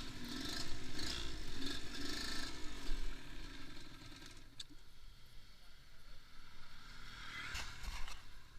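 Motorcycle engine idling with a wavering pitch for about four seconds, then the sound drops away to a quieter stretch broken by a single sharp click.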